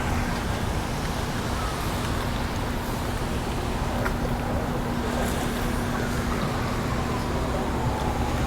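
Steady city traffic noise with a faint distant siren wailing, its pitch sweeping slowly down and back up.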